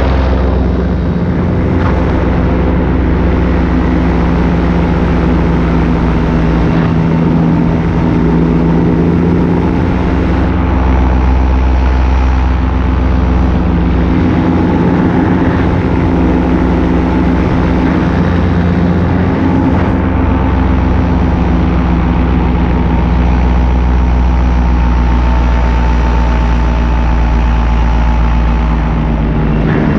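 Paramotor engine and propeller running steadily in flight, a loud, even drone whose pitch holds level throughout.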